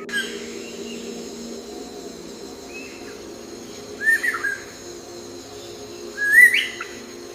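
A bird giving short whistled calls, two clear ones a couple of seconds apart and a fainter one before them, over a steady background hum.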